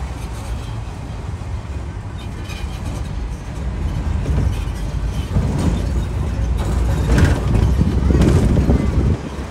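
Open-air parking tram driving along, a steady low rumble of its motor and tyres on the road that grows louder about halfway through and eases near the end.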